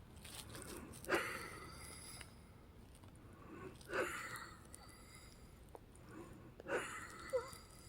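A woman's labored breathing with wheeze, three short, hard breaths about three seconds apart. The caregiver takes it for breathing hard more than true wheezing.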